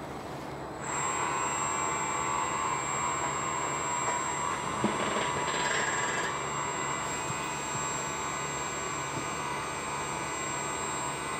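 Battery-swap machinery of a NIO Power Swap Station working under the car: electric drives start about a second in and run with a steady whine while the old battery is pulled off from below. There is a single knock near the middle and a brief higher tone just after it.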